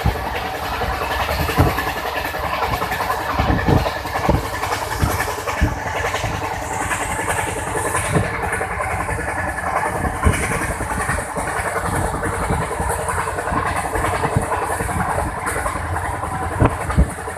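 Ananya Express passenger train running at high speed: a steady rumble and rattle of wheels on the track, broken by sharp knocks at irregular intervals.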